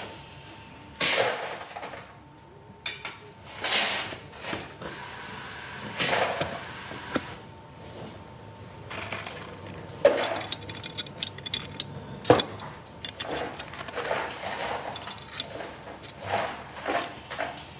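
Metal parts of a cycloidal pinwheel reducer knocking and clinking as it is assembled onto its electric motor: the cast housing and output shaft end are seated. Two sharp knocks come in the middle. Rapid clicking runs through the second half.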